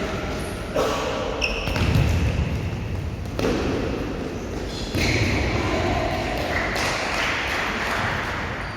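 Futsal play on an indoor court: several thuds of the ball being kicked and bouncing, short high squeaks of shoes on the floor, and players' voices.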